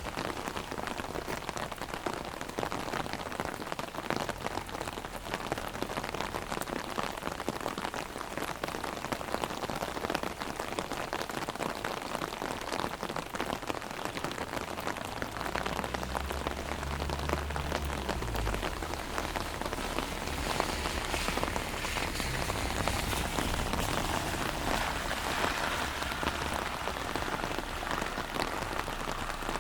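Heavy rain pattering on an umbrella, a dense, steady spatter of drops. About halfway through, a low rumble swells for a few seconds and drops in pitch as it fades.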